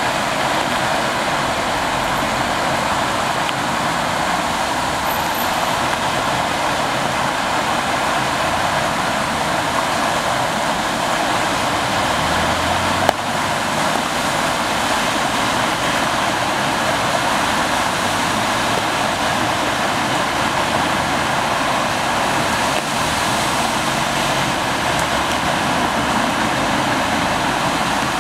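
Floodwater surging out of a manhole and rushing across a flooded road, a steady, even rush of water. Cars splash through the water about halfway and near the end, and there is a single sharp click about halfway.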